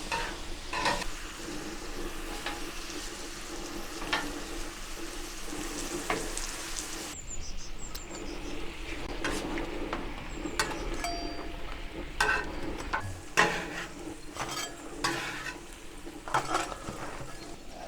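Red onion jam frying on the Pit Boss Ultimate Griddle's flat-top, with onions, sugar and red wine vinegar sizzling steadily and a spatula now and then scraping and clicking on the steel as it is stirred.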